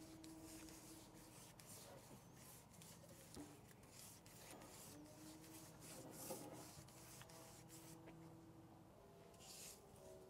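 Near silence, with faint scratchy rubbing noises that come and go.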